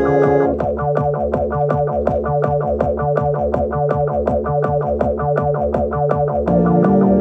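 Instrumental music: effects-laden guitar and bass over a steady, rapid ticking pulse. The arrangement shifts about half a second in and again near the end.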